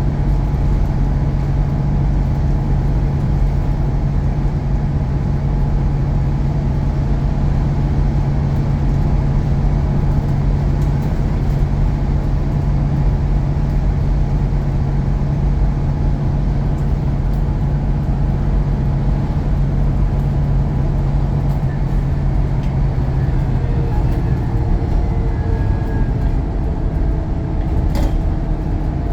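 Bus diesel engine pulling hard with a steady drone and a thin turbo whistle above it. The engine note changes about 24 seconds in, and there is a short sharp click near the end.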